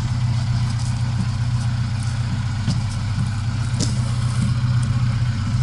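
IZh 21251 Kombi's four-cylinder engine idling steadily, with a few faint light clicks over it.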